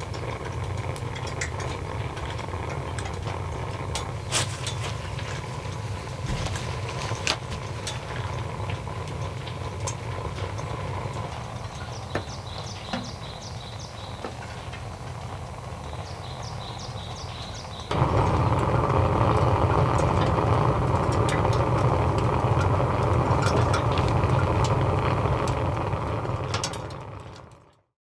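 Hwazhak pellet stove running: a steady low fan hum with scattered crackles and clicks from the fire. The hum jumps louder about two-thirds of the way through, then fades out just before the end.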